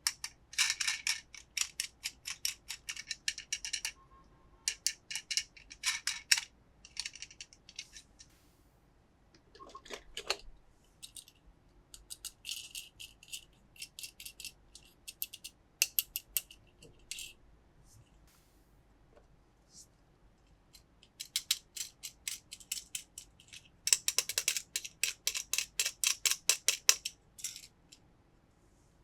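Bursts of rapid, sharp clicking and rattling from small plastic toy cars being handled, with quiet gaps between runs; the densest run comes near the end.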